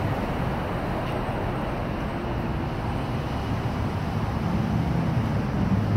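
Steady street traffic noise: a low rumble of passing cars, growing a little louder near the end.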